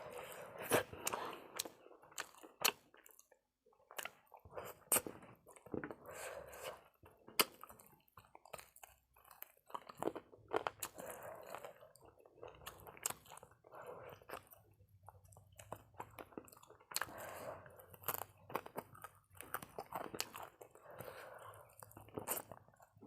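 A person eating close to the microphone: steady chewing with wet smacks and many irregular crunchy bites and clicks.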